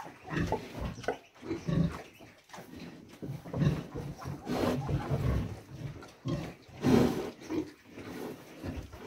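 Heavily pregnant sow grunting repeatedly, in short low grunts at irregular intervals, several of them louder around the middle.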